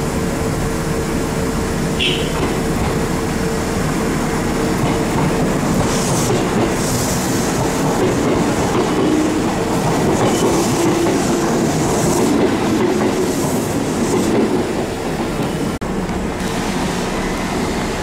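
Kintetsu electric train moving along the platform, with wheels clacking over the rail joints and some wheel squeal; it grows louder through the middle and eases off near the end.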